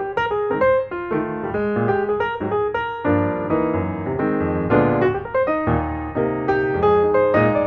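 Background piano music, a quick stream of notes.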